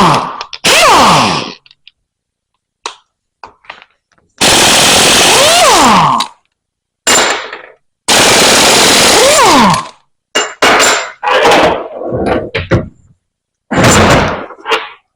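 Pneumatic impact wrench run in repeated bursts of one to two seconds, rattling as it hammers on the pump's bolts. Its air motor's pitch slides up and then down within the longer bursts.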